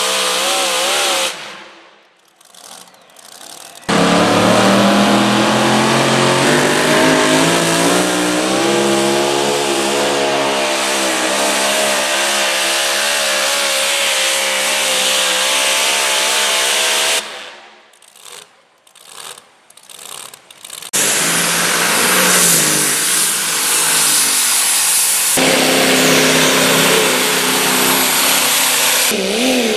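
Supercharged pulling engines of modified tractors and trucks running at full throttle in a string of short clips, each cut off abruptly with brief quieter gaps between. The longest, about thirteen seconds, starts suddenly and climbs in pitch as the engine winds up, then holds.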